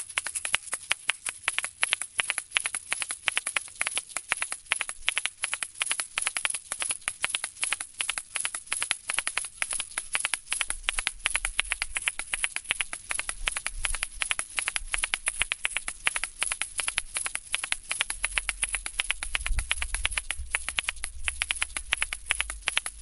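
A pair of asalato (kashaka) shakers played in a fast, steady rhythm: the seed rattle and sharp clacks of the two shells striking each other, about seven or eight hits a second. A low rumble joins in about halfway through.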